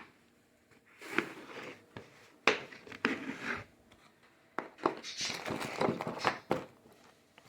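Handling noises of parts and packaging: irregular rustles with scattered sharp clicks and knocks, and brief quiet gaps between them.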